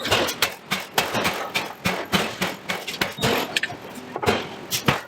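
Forging hammer striking metal in quick, uneven blows, about four to five a second.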